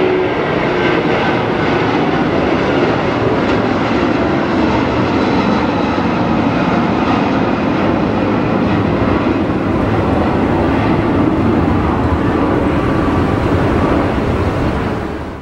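Airbus A330 airliner's jet engines at takeoff power as it climbs away, a loud steady rumble that fades out at the very end.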